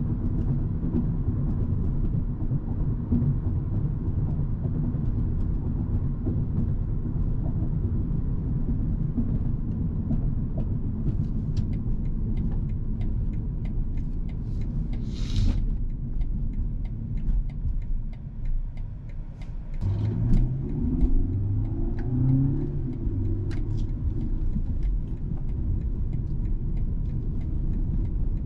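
Cabin sound of a 2021 BMW 228i Gran Coupe: a steady low road and tyre rumble at cruising speed, easing off a little past halfway. The 2.0-litre turbocharged four-cylinder then rises in pitch as the car accelerates, stepping up through a couple of gear changes. A brief hiss sounds about halfway through.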